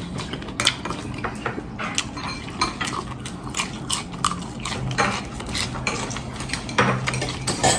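A person chewing and eating close to the microphone, with many irregular sharp mouth clicks and light clinks of tableware. The food in the mouth is a green leaf vegetable.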